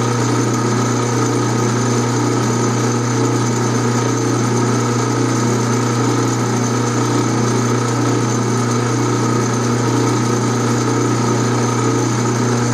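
12-inch Atlas metal lathe running at a steady speed, giving an even mechanical hum with steady higher tones above it.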